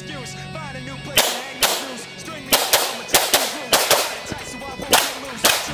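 Semi-automatic pistol fired about ten times in a quick string, mostly in fast pairs of two shots per target, starting about a second in. Background music plays under the shots.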